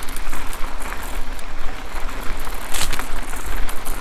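Mountain bike rolling fast over a dirt trail: steady wind rush on the microphone over a low rumble of tyres on the ground, with the bike rattling and clicking over bumps throughout.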